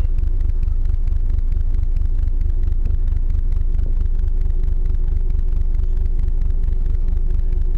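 Icebreaker ship's engine running with a steady deep rumble and a constant hum.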